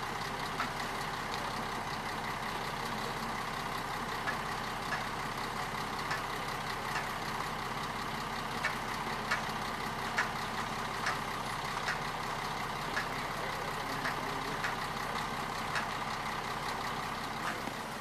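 Steam locomotive moving slowly, with a steady hiss of steam and light clicks about once a second.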